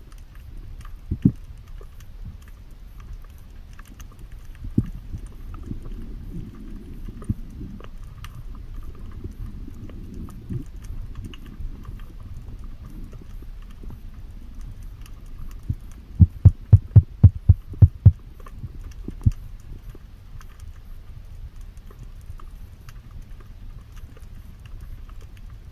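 Dull knocks and thumps over a low rumble with faint crackling, as heard through an underwater camera on a freedive: a few single knocks in the first half, then a quick run of about seven loud knocks a little past the middle, with one more just after.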